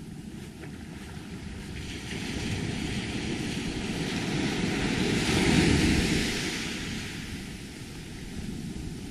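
Ocean surf: a wave washes up the beach, its rush swelling to its loudest a little past halfway and then fading back.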